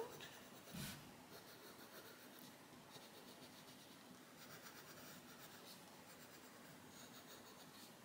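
Faint scratching of an oil-based coloured pencil (Faber-Castell Polychromos) shading on paper in small back-and-forth strokes, with one brief soft sound just under a second in.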